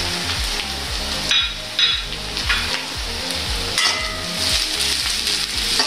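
Chopped onions, curry leaves and green chillies sizzling steadily in hot oil in an aluminium wok, with a metal spoon stirring them and scraping against the pan several times.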